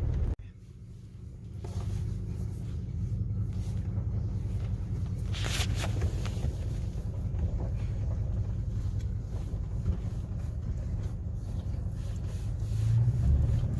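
Truck's engine and road rumble, heard from inside the cab as it drives slowly, low and steady. It drops away suddenly just after the start and builds back within a couple of seconds. There is a brief click about five and a half seconds in.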